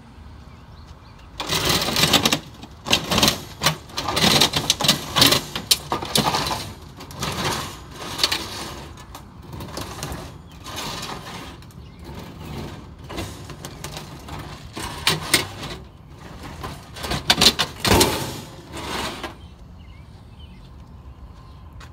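Scrap sheet-metal stove being lifted and shoved onto a metal vehicle bed: an irregular run of clanks, bangs and metal-on-metal scraping. It starts about a second and a half in and stops shortly before the end.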